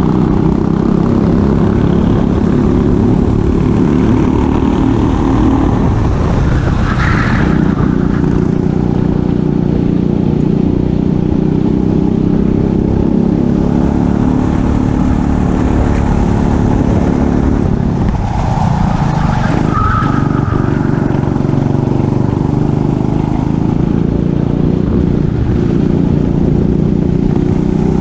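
Racing kart engine heard onboard, running hard at high revs with a constant rush of wind. The engine note falls off twice, about six and eighteen seconds in, then climbs again, with a short higher-pitched sound near each dip.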